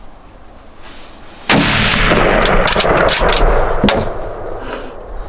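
A gunshot about one and a half seconds in, the shot at a whitetail buck, followed by about two seconds of loud noise full of sharp clicks and knocks, with a last sharp click near four seconds before it dies away.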